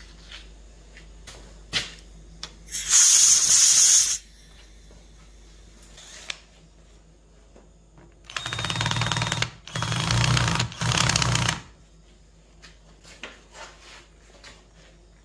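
A power tool running in three short bursts of about a second each, with a steady hum under a rattle. A second-long high hiss comes earlier, and there are scattered clicks and knocks of tool handling.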